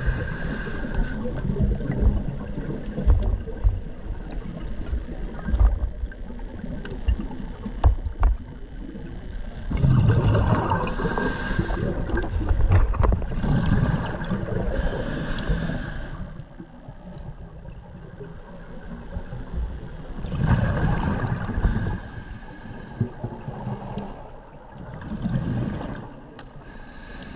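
Scuba diver breathing through a regulator underwater: a short hiss on each inhale and a rumbling burst of bubbles on each exhale, repeating every several seconds.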